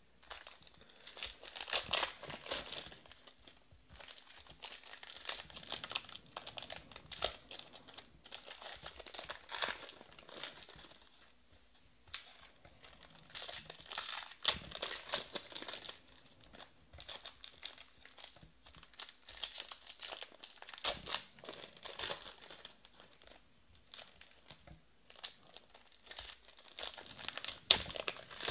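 Foil wrappers of 2020 Panini Prizm baseball card packs being torn open and crinkled by hand, in bursts every few seconds, with the cards handled and stacked between.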